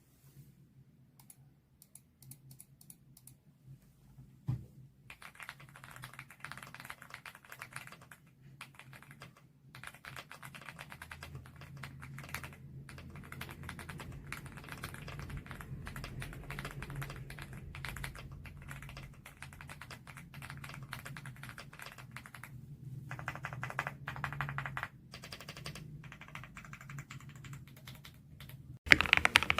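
Typing on a mechanical keyboard fitted with Cherry-profile double-shot keycaps: a few scattered key clacks and one sharper knock at first, then about five seconds in a fast, steady run of keystrokes with brief pauses, louder near the end.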